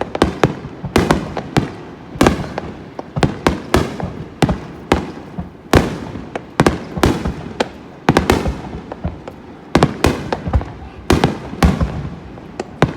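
Fireworks display: a rapid, irregular series of aerial shell bursts and cracks, several a second, some echoing.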